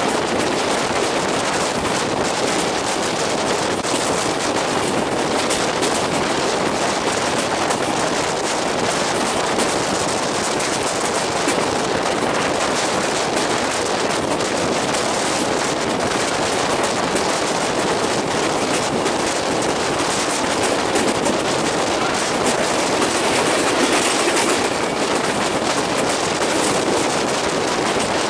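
LHB passenger coach running on the rails, heard from on board: a steady rumble of wheels on track with a dense, rapid rattle.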